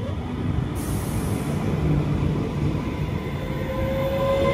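Train approaching on the line: a low rumble growing louder, with a thin whine coming in near the end.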